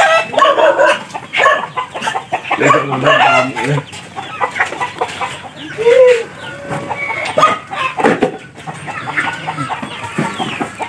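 A flock of Darag native chickens clucking and calling, many short calls overlapping.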